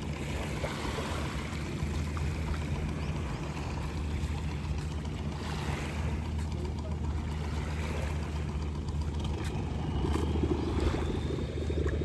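A boat's engine running with a steady low drone under a rushing wash of water noise, getting a little louder about ten seconds in.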